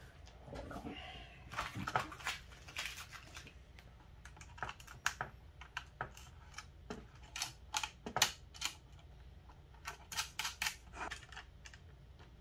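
Small metal nuts and lock washers clicking and clinking, picked out of a plastic bag and fitted onto the bolts of a fuse block. The clicks come irregularly, one or a few at a time.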